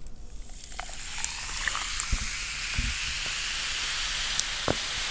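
Cola poured into a cup and fizzing: a steady hiss of bubbles that builds up over the first second, with a few small clicks.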